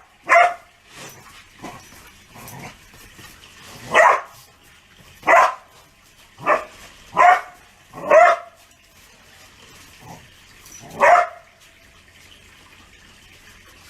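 Chihuahua barking: about seven sharp barks at uneven intervals, with a few fainter ones between, as its nails are being trimmed.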